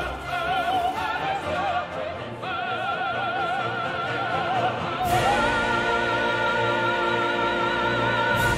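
Background opera music: a singer with wide vibrato over an orchestra, settling into a long held note about five seconds in.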